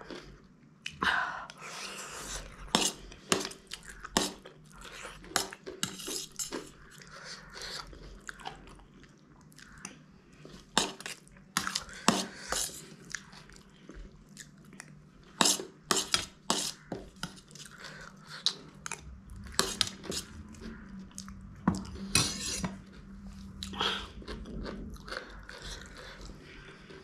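Close-up eating sounds: chewing and crunching bites of a noodle-filled egg roll and spicy noodles, with a metal spoon clinking and scraping on a steel plate in many irregular sharp clicks.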